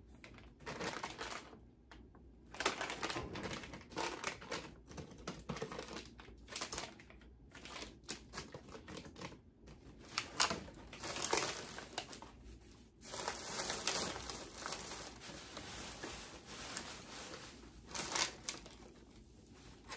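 Plastic bags and snack packaging rustling and crinkling in irregular bursts as someone rummages through them by hand, with light clicks and knocks of packages being handled.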